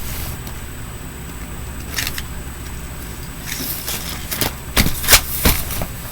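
Plastic fidget toys clattering as they are handled and dropped into a pile. There is a cluster of clicks about two seconds in and several louder clacks in the second half, over a steady low hum.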